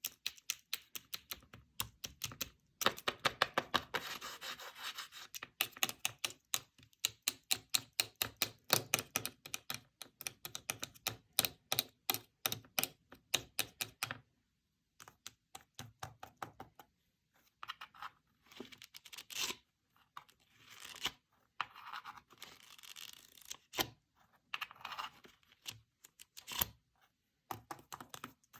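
Paper fidget-board pieces being clicked and tapped by fingers in quick runs, several clicks a second. About halfway through this gives way to slower scratching and rustling of paper.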